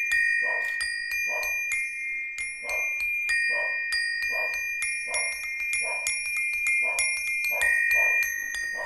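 A set of tuned metal bars struck in a steady rhythm with small metal beaters, about one and a half strokes a second, with bright ringing tones held over the strokes. It is an allegrezza, the festive pattern for church bells, played on a practice set of bars in imitation of the bells.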